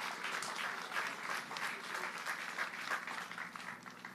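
Crowd applauding, dying away near the end.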